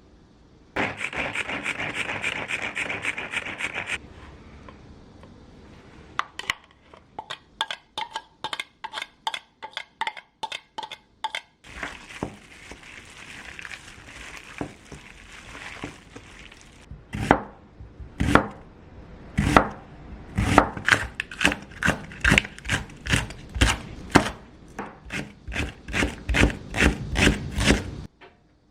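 Kitchen knife chopping food on a cutting board in several runs of strokes: a quick flurry in the first few seconds, then steady strokes about two a second, a few seconds of hiss, and more chopping that stops shortly before the end.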